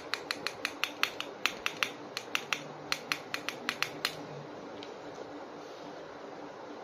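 A quick run of sharp plastic clicks, about four or five a second, as a small plastic action figure is handled and its limbs worked; the clicks stop about four seconds in.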